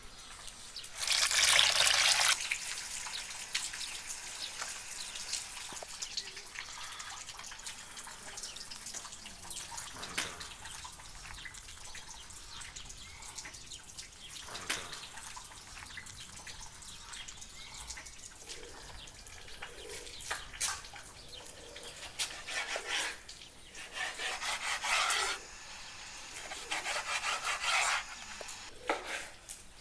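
Water running and splashing in several bursts; the loudest comes about a second in, and a cluster follows in the last third. Quieter rubbing and handling sounds fall between the bursts.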